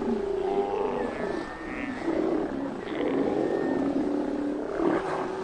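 A colony of Steller sea lions calling, many deep growling calls overlapping one another without a break.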